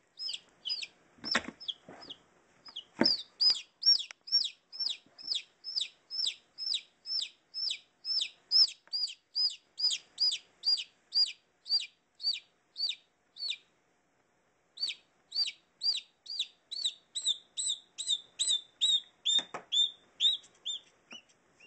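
A chick peeping loudly and repeatedly, about two high, downward-sliding peeps a second, as it is gripped and constricted by a boa constrictor: distress calls. The peeps break off for about a second midway, then resume. A few dull knocks come near the start and near the end.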